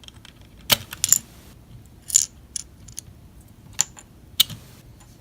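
Small sharp clicks and taps, about six of them spread over five seconds, as a 1:64-scale toy toolbox is worked loose from a tight fit in a diecast pickup truck's bed.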